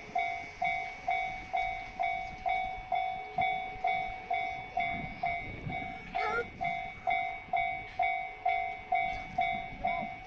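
Japanese level-crossing warning alarm ringing its repeated 'kan-kan', about two dings a second, each stroke fading before the next.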